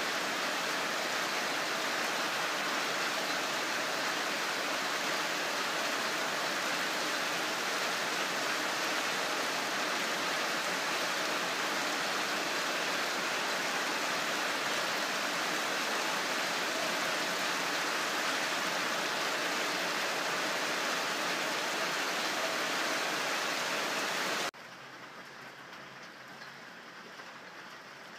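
Steady rain falling, a dense even hiss. About 24 seconds in it drops suddenly to quieter, lighter rain.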